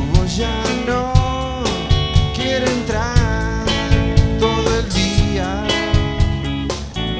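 Rock band playing live: drums keep a steady beat under guitars, with a lead melody sliding up and down in pitch.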